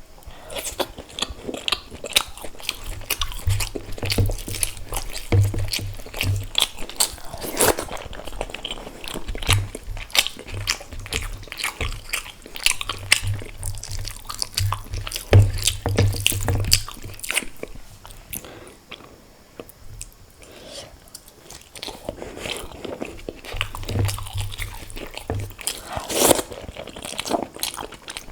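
Close-miked chewing and biting of egg curry and rice: dense wet mouth clicks and smacks with low thuds, easing off for a few seconds about two-thirds through before picking up again.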